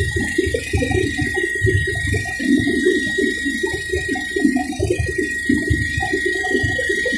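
Helicopter in flight, heard from aboard: a loud, uneven, churning rumble with a steady high whine over it.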